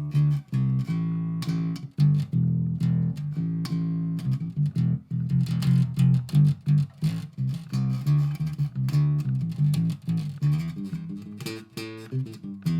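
Guitar-led background music: quick plucked notes over a bass line.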